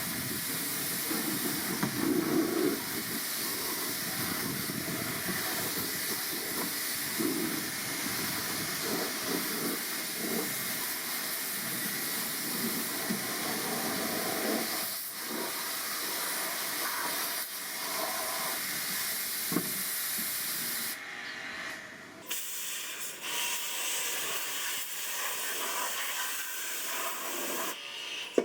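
Steady hissing of a pressurised spray used in cleaning a car's air-conditioning system. The hiss breaks off briefly and changes in tone about three-quarters of the way in.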